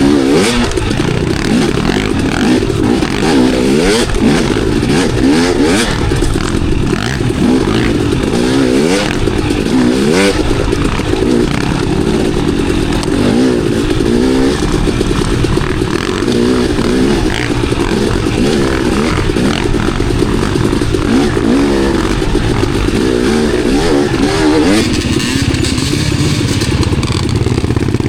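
Dirt bike engine revving up and down again and again as the throttle opens and closes on a trail ride, with knocks and clatter from the bike over rough ground.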